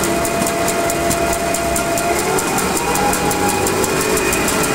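DoAll 2013-V5 vertical band saw running with its blade near top speed, a steady machine whine that rises a little in pitch about halfway through as the variable-speed drive is turned up. A fast, even ticking runs over it.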